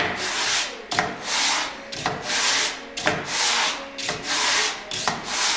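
Glued-up ring of wood segments rubbed by hand across a sheet of sandpaper laid flat on a table saw top, in steady back-and-forth strokes about once a second, each starting with a light knock. This is hand-flattening the ring's face to get a good glue surface.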